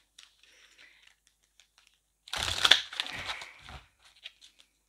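A deck of oracle cards shuffled by hand: faint handling at first, then a brisk rustle of many quick card flicks for about a second and a half, starting a little before halfway through.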